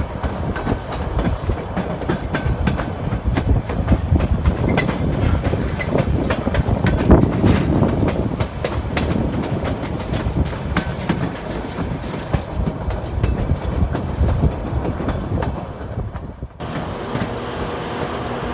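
Narrow-gauge passenger train running, with a steady rumble and rapid clicking and clacking of wheels on the rails. Near the end it changes abruptly to a smoother, steadier running sound with a low hum.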